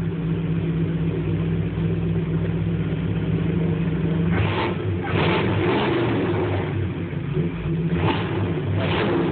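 The 1958 Ford truck's big engine with dual exhaust idling steadily, then revved, about four and a half seconds in and again near the end. Heard from inside the cab.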